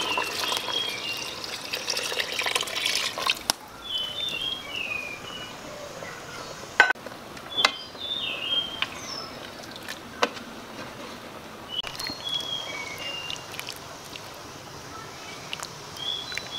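Coconut milk pouring from a bowl into a pot of kolak for the first three seconds or so, then stopping. Afterwards it is quieter, with small birds chirping repeatedly and a few sharp clicks.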